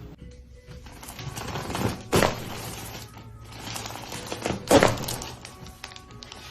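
Two loud, sudden cracks from a chiropractic adjustment, one about two seconds in and another just before five seconds, each preceded by a rustling build-up.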